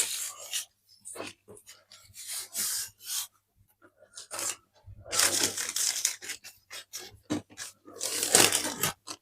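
Irregular rustling and scraping from hands working in the kitchen, with paper or pastry being handled on a work surface. It comes in short scrapes and gets louder in two longer stretches, about five and eight seconds in.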